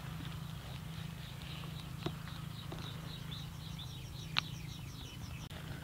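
Hands handling sticky rice and grilled fish on lotus leaves: a few sharp clicks over a steady low hum. A quick, even run of high chirps sounds about halfway through.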